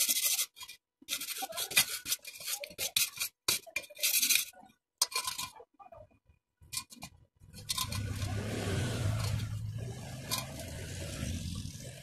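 Hand file scraping in irregular strokes across the weld on a thin square steel tube, filing the bead flush. After about seven and a half seconds the strokes give way to a steadier low humming noise.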